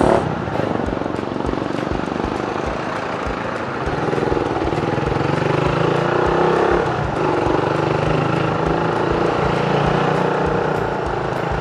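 Suzuki Raider R150's single-cylinder four-stroke engine running at low speed while the motorcycle is ridden slowly, a little louder from about four seconds in.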